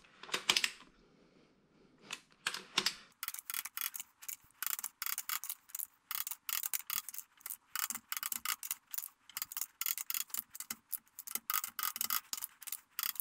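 The ratchet of a torque wrench clicking as the wrench is swung back and forth on the 2JZ's main bearing cap bolts. This is a tightening step on the way to 60 ft-lb. A few single clicks come first, then quick steady runs of clicks from about three seconds in.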